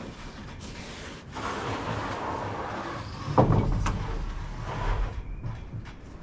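Sawn wooden boards being handled: scraping and knocking of wood on wood, with a heavy thud about three and a half seconds in.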